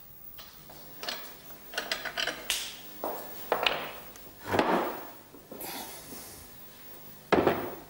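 Irregular wooden knocks and thuds, about six in all, as the parts of an antique black turned pedestal table are handled and set against each other; the loudest knock comes near the end.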